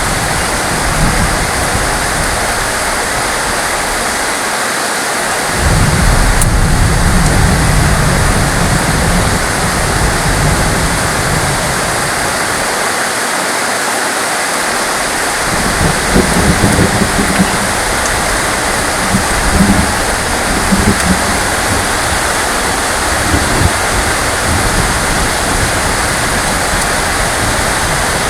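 Heavy rain falling steadily, with thunder rumbling deep and low: one long roll beginning about five seconds in, and more rolling rumbles in the second half.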